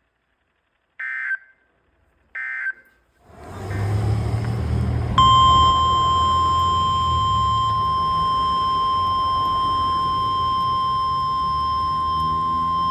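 Two short electronic beeps, then radio hiss rising, and about five seconds in the NOAA Weather Radio 1050 Hz warning alarm tone: one steady high tone with faint overtones, the signal that a warning bulletin is about to be broadcast.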